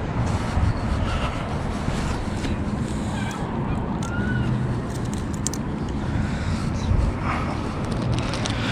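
Geese honking over a steady outdoor background noise, with a few short bird chirps.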